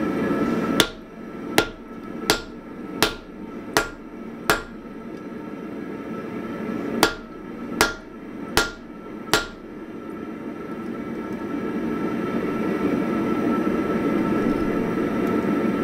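Hand hammer striking a red-hot axe body held in tongs on an anvil: six sharp blows about three-quarters of a second apart, a pause of two seconds, then four more. A steady rushing noise runs underneath and grows louder after the blows stop.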